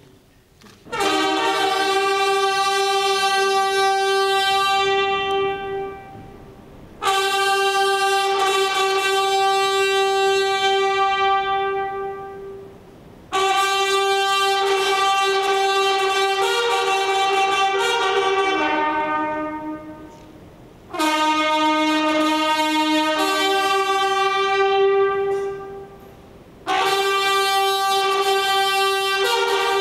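Ceremonial brass fanfare: five long held chords. Each starts sharply and holds for about five seconds before fading, and the last runs on.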